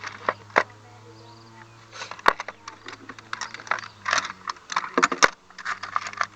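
Metal sockets and wrenches clinking and rattling against each other as they are picked through in a box, with irregular sharp clinks, over a steady low hum.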